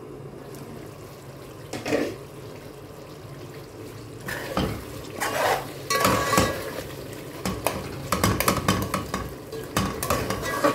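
Metal spoon stirring and scraping thick chicken-and-potato masala in an aluminium pot, clinking against the pot's sides, from about four seconds in. Before that a low steady hum, with a single knock about two seconds in as the glass lid comes off.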